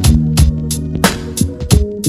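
Instrumental music with a steady drum beat and a bass line stepping between notes.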